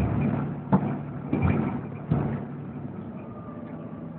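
Volvo B7TL double-decker bus heard from inside the passenger saloon: the diesel engine runs with a steady low hum, and the body gives about four short knocks and rattles in the first couple of seconds.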